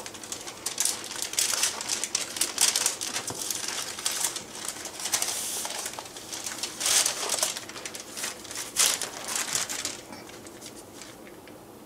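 Parchment paper crinkling and rustling in irregular bursts as it is rolled around a bacon-wrapped roast and pulled out from under it. The rustling stops about ten seconds in.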